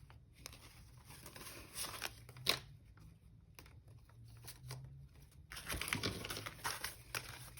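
Paper banknotes rustling and crinkling as they are handled and sorted, with one sharp tap about two and a half seconds in and louder rustling near the end.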